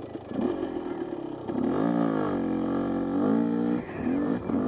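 Husqvarna 250 two-stroke dirt bike engine revving while ridden: the pitch climbs about two seconds in, holds high for about a second, then drops, followed by two short throttle blips near the end.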